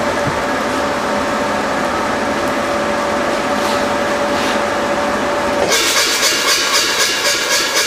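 Forging power hammer running with a steady hum and a held tone, then about five and a half seconds in it starts striking at about three blows a second as a glowing steel bar is worked between its dies.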